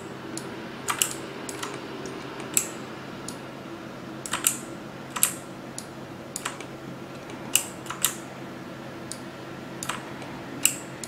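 Scattered clicks of a computer keyboard and mouse being used, irregular, roughly one or two a second and sometimes in quick pairs, over a faint steady hum.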